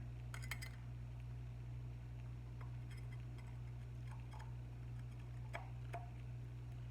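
A few faint, scattered clicks and light taps as the glued broken head of a Buddha figurine is fitted back onto its body, over a steady low hum.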